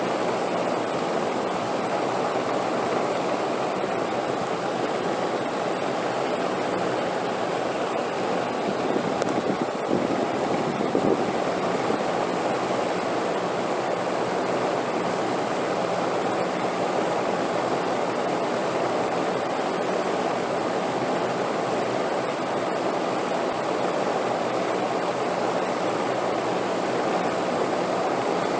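Wind blowing as a steady, dense rush, swelling slightly about ten seconds in.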